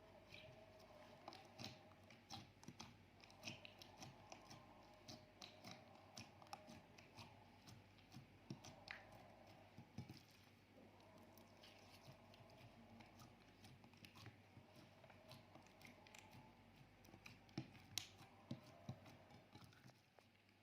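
Slime being kneaded and stretched by hand, faint, with many small sticky clicks and pops over a low steady hum.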